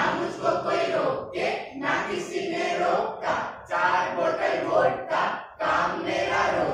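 Actors' voices speaking loudly and without pause, with a brief break about five and a half seconds in.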